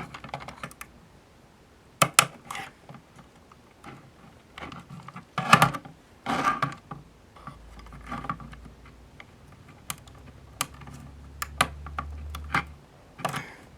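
Acrylic case panels being handled and pressed together, giving irregular light clicks and taps, a few in quick clusters.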